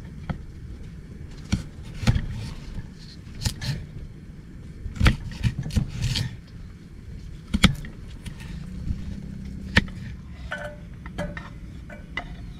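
A kitchen knife cutting a raw carrot on a wooden cutting board: a series of separate, irregular knocks as the blade goes through the carrot onto the wood. Near the end there are smaller clicks and scrapes as the pieces are tipped off the board into a steel pot.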